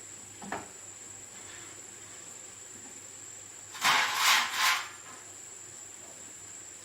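A loud noisy rush in three quick pulses about four seconds in, lasting about a second, over a faint steady high whine, with a small click near the start.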